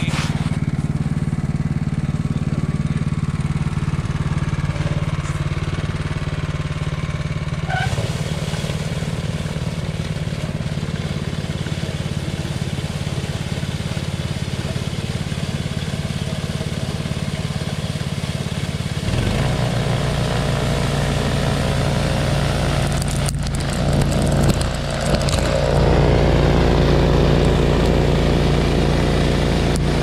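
Honda HSS928 snowblower's single-cylinder engine running steadily under load while its auger and impeller chew through and throw heavy wet snow and slush. It gets louder and fuller in the last third as the machine comes closer.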